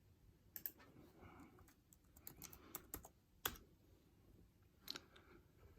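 Faint computer keyboard typing: scattered, irregular keystroke clicks, the loudest about three and a half seconds in.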